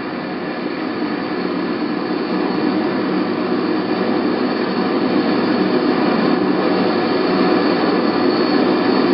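Steady jet aircraft engine noise, an even rushing roar that slowly grows louder, as heard during an in-flight refuelling approach to a tanker's hose and drogue.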